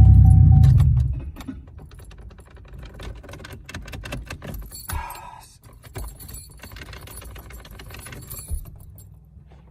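An old Oldsmobile's engine running with a loud low rumble, then cutting off about a second in. After that come light jangling and clicking of keys and small rattles inside the car, with one short higher-pitched sound around the middle.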